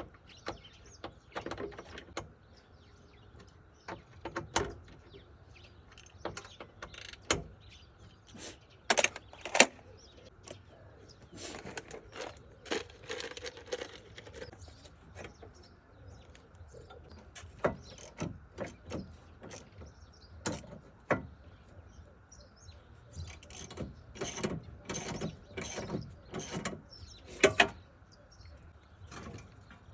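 Irregular clicks, knocks and metallic clatter of hand tools and parts being worked on a car, with short pauses between them and a few sharper knocks.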